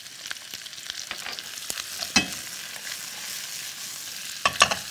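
Sliced onion and bell peppers sizzling as they stir-fry in hot oil in a nonstick frying pan, just salted, with the spatula scraping and clicking against the pan. A cluster of louder knocks near the end as the vegetables are tossed.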